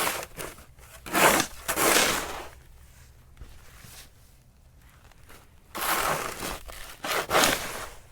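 Snow shovel scraping and scooping snow in two bouts of strokes, one about a second in and another about six seconds in, with quieter gaps between.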